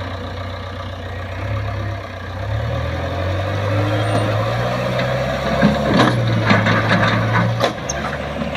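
JCB 3DX backhoe loader's diesel engine running steadily, its pitch rising a little about two and a half seconds in. A series of sharp knocks comes from about five and a half seconds until near the end.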